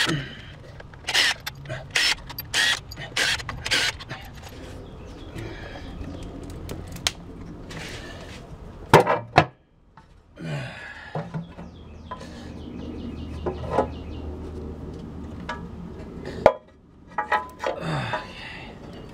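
Power drill running in short spurts as it backs out the upper intake plenum bolts, mixed with many sharp metallic clicks and clacks of bolts and aluminium parts being handled, and a clank near the end as the plenum top is lifted.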